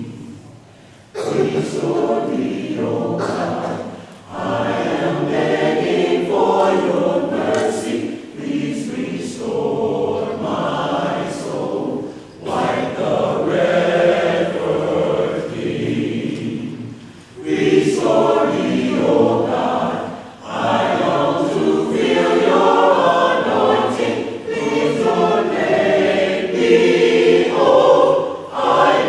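Choir singing a cappella in phrases separated by short breaths, with several voice parts in harmony.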